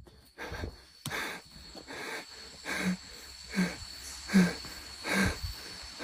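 A man breathing hard and fast, about one breath every second or a little less, some breaths with a voiced edge. The loudest comes about four seconds in. A steady, thin, high insect buzz runs behind.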